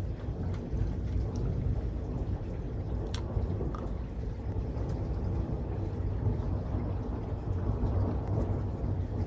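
Thunder rumbling low and steadily after a nearby lightning strike, with a faint tick about three seconds in.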